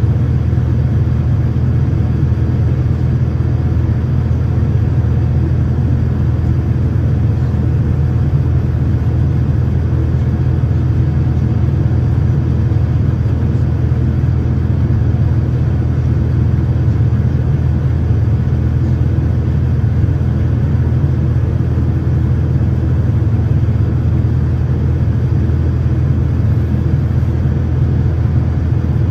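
Boeing 787-9's GEnx-1B turbofan engines running steadily in flight, heard inside the cabin beside the wing as a loud, even low drone.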